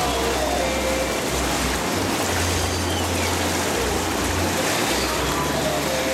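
Hot tub jets churning the water: a steady bubbling, rushing noise with a low rumble that comes and goes beneath it.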